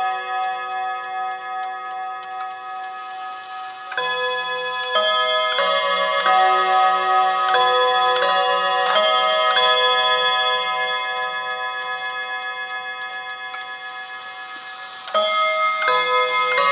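Chime rods of a 1950 German mantel chime clock ringing out a chime melody. Notes ring on from a previous run as it begins, a new run of notes is struck from about four seconds in, fading slowly over the following seconds, and another run starts about fifteen seconds in, with the movement ticking underneath.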